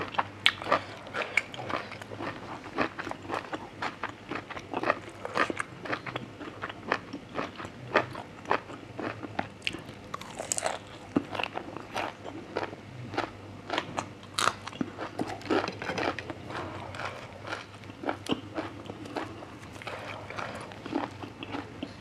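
Close-miked chewing and crunching of grilled intestine salad with fresh raw greens: wet mouth clicks and crisp crunches, several a second, irregular and continuous.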